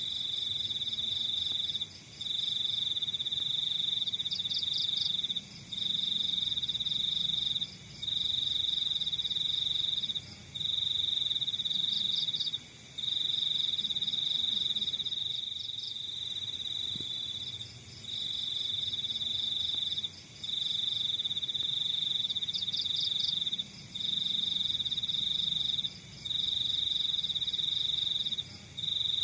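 Crickets trilling in a steady, high-pitched song, broken into repeated phrases of about two seconds with short pauses between them. A fainter, higher chirping from other insects pulses above it in short clusters.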